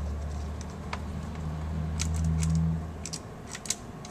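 Light clicks and taps of a screwdriver and small screws being worked out of a laptop's screen frame, several close together around the middle and a few more near the end, over a low hum that stops about three seconds in.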